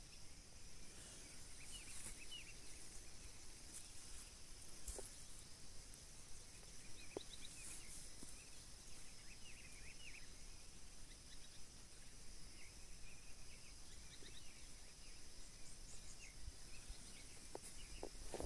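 Faint rural outdoor ambience: a steady high insect drone with scattered short bird chirps and a few small clicks.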